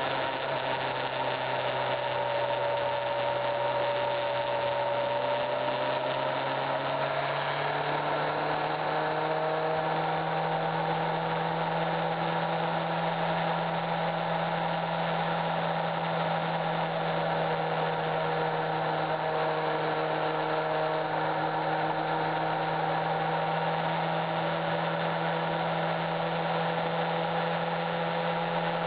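A vehicle engine droning steadily while cruising, its pitch rising slightly about a quarter of the way in and then holding.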